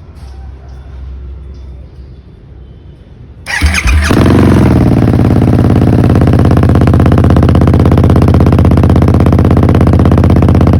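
Harley-Davidson Sportster S's liquid-cooled Revolution Max V-twin, fitted with Cannon aftermarket exhaust pipes, starting up about three and a half seconds in: a brief starter whine, then the engine catches and flares up. It then settles into a steady idle with an even, fast pulse from the pipes.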